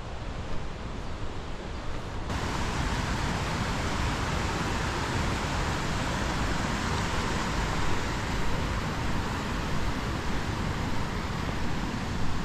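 Steady rushing noise with no distinct events, of the kind made by wind or running water in the open. About two seconds in it suddenly gets louder and brighter, then holds steady.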